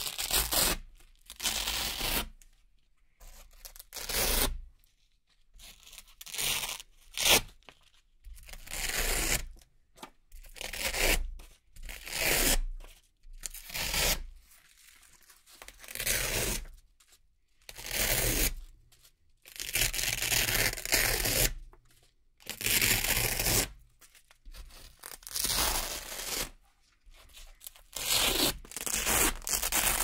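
Velcro strips and discs being peeled off a backing one at a time: a ripping tear roughly every two seconds, about fifteen in all, some short and some drawn out.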